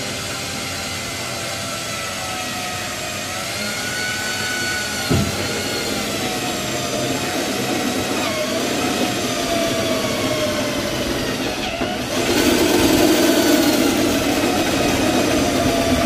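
Electric drill with a step bit cutting a 7/8-inch hole through the steel body panel of a 1964 Chevrolet Impala. The motor whines steadily, its pitch sagging and recovering as the bit loads, with a single knock about five seconds in. About twelve seconds in it turns louder and harsher as the bit bites into the metal.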